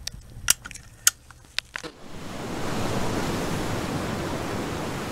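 A ratcheting PVC pipe cutter snaps sharply about five times in the first two seconds as it works through the pipe. From about two seconds in, a steady rushing noise follows from the running pool pump equipment, with water flowing through the plumbing.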